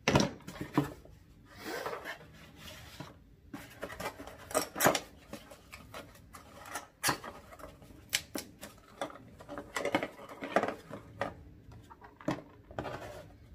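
Loose plastic parts of a Giffin Grip clattering and clicking as they are sorted in a small plastic basket, with cardboard packaging rustling and scraping. Irregular handling noises, with a few sharper clicks.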